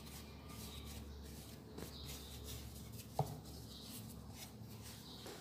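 Faint rubbing and light taps of hands gathering and shaping a soft ball of dough on a floured board, with one sharp knock about three seconds in.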